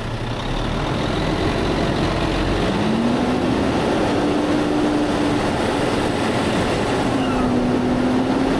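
Truck engine pulling away and gathering speed, its pitch rising about three seconds in and again near the end, over a steady rush of wind and road noise. It is heard from outside the cab, by the hood.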